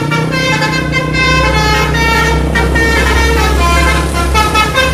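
Indonesian 'telolet' multi-tone bus horn playing a quick run of notes, over the low, steady running of a bus engine.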